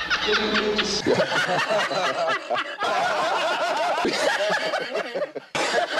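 A man laughing in short repeated bursts of snickering and chuckling, several clips cut together with abrupt changes about a second in, a little before the middle, and near the end.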